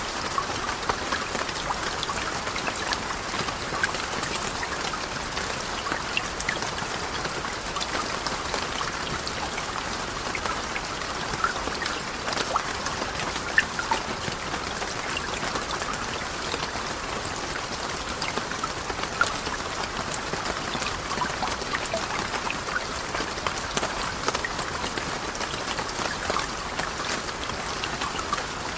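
Steady rain: an even hiss with many small, sharp drop ticks scattered through it, unchanging throughout.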